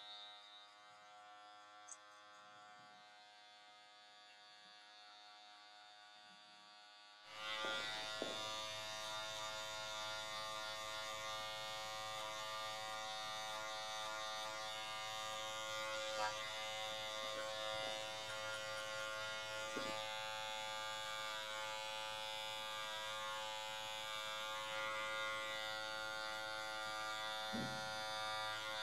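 Cordless hair clipper buzzing steadily as it cuts short hair. It is fairly quiet at first, then gets much louder about seven seconds in and stays loud.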